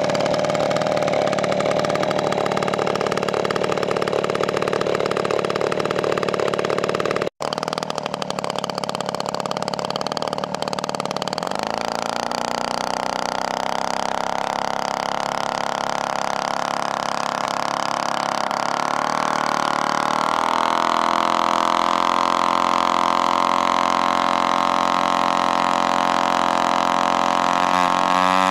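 3W-55 single-cylinder two-stroke petrol engine of a giant-scale model Spitfire running on the ground during an engine run-up. It runs steadily at first, breaks off for an instant about seven seconds in, then its pitch climbs gradually in steps, wavering up and down near the end.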